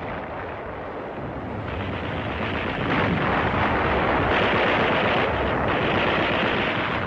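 Battle sounds: continuous gunfire and shell explosions in a dense din, swelling about two seconds in and loudest in the middle and later part.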